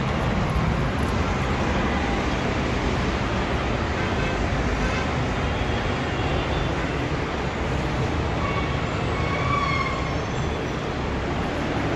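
Steady road traffic noise from the busy street below, with a short faint tone about nine to ten seconds in.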